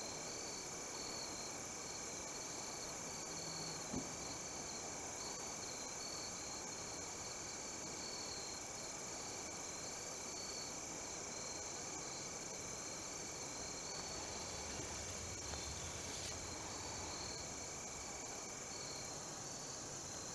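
Insect chorus of crickets singing: a steady high trill with a pulsing, rhythmic chirp layered over it, and a lower steady tone that drops out near the end. A single brief click about four seconds in.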